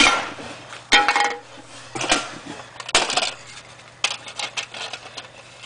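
A series of sharp clinks and clatters, about one a second, as hard objects are handled in a plastic tray on a workbench. Some strikes carry a short metallic ring.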